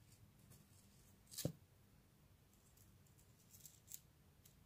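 Near silence, with faint handling noises: a soft knock about a second and a half in and a few light clicks and rustles later on.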